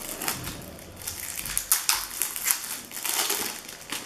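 Plastic wrapping crinkling and crackling in irregular bursts as hands unwrap and handle a new deck of game cards.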